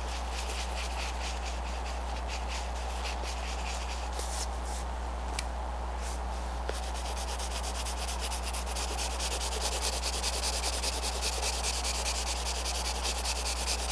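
Green colored pencil scratching on paper in rapid back-and-forth shading strokes, building up layers of color. The strokes let up for a couple of seconds about four seconds in, then resume and grow louder toward the end, over a steady low electrical hum.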